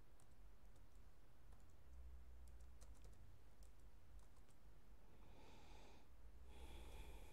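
Computer keyboard typed on faintly: a run of quick, soft keystrokes over the first four seconds or so. Near the end come two short, soft hissing sounds, the second one the loudest thing here.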